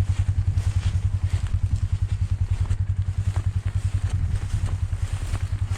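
Small vehicle engine running steadily with a fast, even pulse, a few light rattles and clicks over it.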